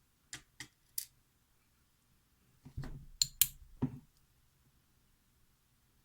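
Small metal lock parts and tools clicking and tapping while a pin-tumbler lock is taken apart: three single sharp clicks in the first second, then a quick run of clicks and taps about three to four seconds in.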